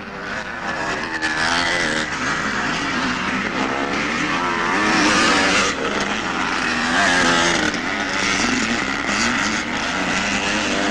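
Vintage 250cc two-stroke motocross bikes, such as 1970s CZ 250s, revving hard under race load. The engine pitch rises and falls again and again with the throttle and gear changes. The sound breaks off briefly about halfway through.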